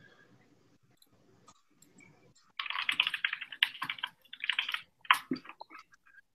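Near silence for about two and a half seconds, then scattered clicking and rustling noises for about three seconds, heard over a video-call line.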